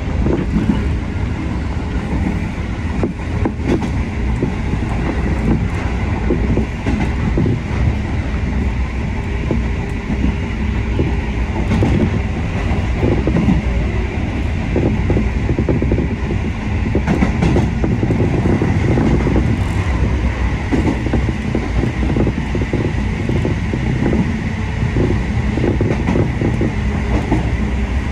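Kotoden electric train running at speed, heard from inside the front of the car: a steady, loud rumble of wheels and running gear, with scattered clicks as the wheels pass over rail joints.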